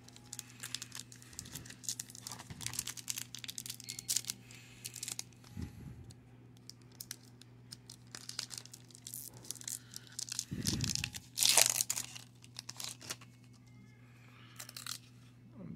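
Foil wrapper of a 1996 Pinnacle baseball card pack crinkling and tearing as it is pulled open by hand, with one louder rip about two-thirds of the way through.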